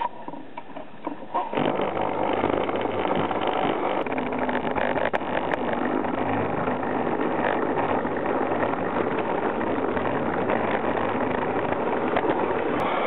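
Garden-scale model train running along outdoor track, its motor and wheels heard close up from a camera riding on it; the steady running noise starts about a second and a half in, after a few light clicks.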